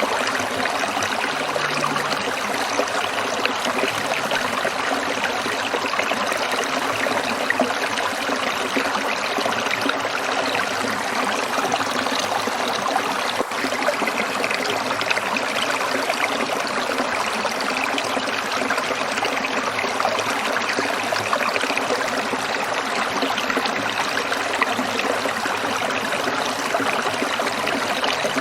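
Stream water trickling and splashing over rocks in a steady, unbroken rush.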